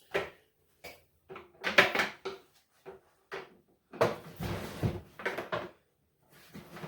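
A string of separate knocks and clatters as tools and hardware are handled in a workshop. About four seconds in comes a longer rustling, scraping stretch.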